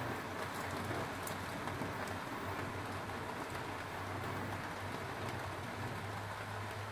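Foil-wrapped tilapia grilling on a rack over a gas stove burner: a steady hiss with a few faint crackles.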